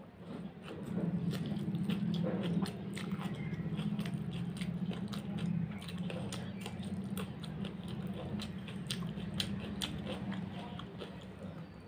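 Close-up chewing of a big mouthful of rice eaten by hand, with many small wet clicks and smacks over a steady low chewing sound.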